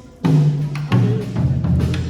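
Live band: after a brief lull, drum hits and low bass notes come in together about a quarter of a second in. The bass notes change pitch about every half second.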